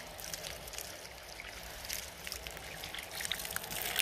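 Water running from an outdoor garden tap and splashing over hands and onto the ground below, with many small irregular splashes. The tap is turned off near the end and the splashing stops.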